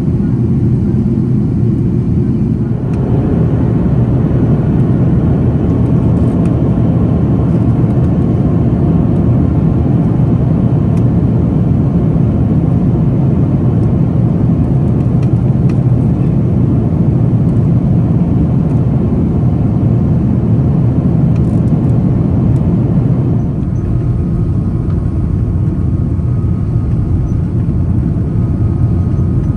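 Airbus A330 cabin noise on descent: a steady rush of jet engines and airflow heard from a window seat beside the wing. It grows louder and fuller about three seconds in and eases back about 23 seconds in.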